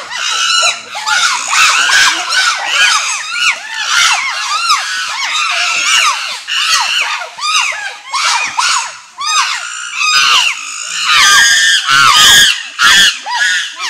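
A group of chimpanzees screaming, with many short, high-pitched calls that rise and fall and overlap one another, getting louder toward the end.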